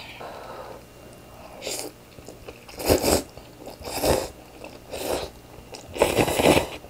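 A person slurping rice noodles in broth with chopsticks: about five short slurps, the last and longest near the end.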